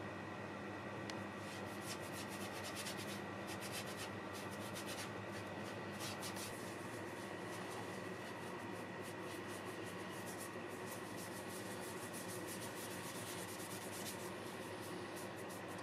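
A brush scrubbing finish onto the wood surface of a turned conifer vessel: irregular, rapid scratchy bristle strokes. Under it runs a steady low hum with a thin high whine.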